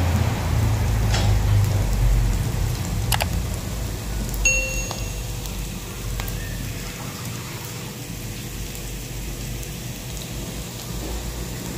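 Shallots and garlic sizzling in hot oil in a wok, a steady crackling hiss over a low rumble that slowly fades. A single click comes about three seconds in, and a brief high ding about a second later.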